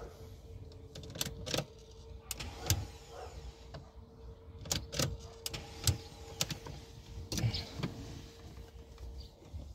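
A steady electric whine from a BMW E46 that will not start, with irregular clicks and knocks over it; the whine stops near the end.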